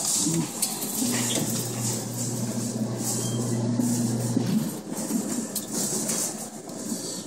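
Claw crane machine's motor humming steadily for about three and a half seconds, starting about a second in, over a constant hiss and clatter of arcade noise.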